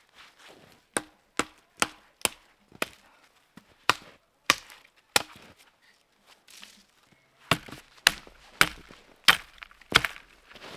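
Hatchet chopping the limbs of a small fallen tree: about thirteen sharp wooden chops, roughly two a second, with a pause of about two seconds midway.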